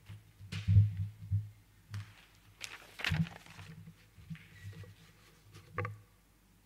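Scattered knocks and low thumps, with faint shuffling of people moving about.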